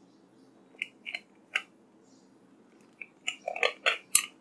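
Clear plastic sleeve crinkling as a coiled USB charging cable is slid out of it: a few separate crackles, then a quick cluster of crackles near the end.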